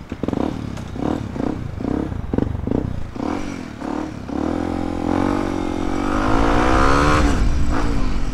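Yamaha WR155R's single-cylinder four-stroke engine pulling away from a standstill. It revs in short rises and falls about twice a second at first, then climbs steadily in pitch under acceleration and eases off near the end.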